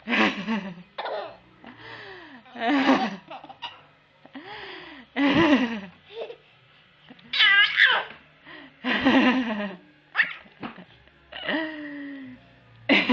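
Baby laughing in repeated bursts about every second or two, some breathy and some with a high, wavering pitch.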